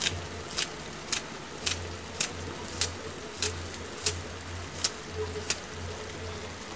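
Kitchen scissors snipping green onion stalks: about ten crisp snips, a little under two a second, ending about five and a half seconds in, over a low steady hum.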